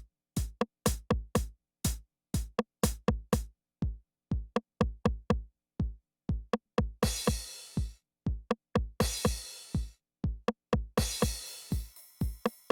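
Roland analog drum machine playing a programmed pattern: quick runs of sharp drum hits, several a second, with low kick and tom thuds that drop in pitch. Longer hissing cymbal hits come in about seven, nine and eleven seconds in.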